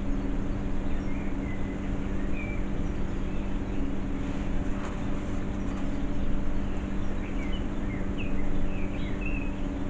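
Steady low hum over an even background noise, with a few faint bird chirps about a second in and again near the end.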